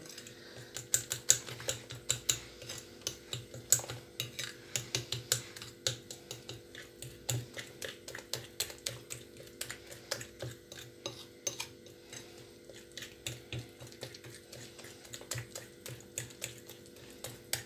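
A metal utensil clinking and scraping against a glass bowl as egg-and-flour batter is stirred, in quick irregular taps a few times a second.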